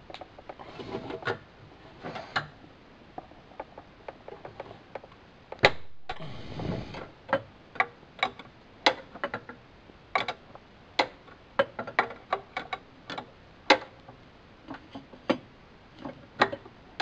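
Wrench clicking against the steel brake-line fittings of a VW brake master cylinder as the lines are loosened: irregular sharp metallic ticks, about one to two a second, with a brief rustle about six seconds in.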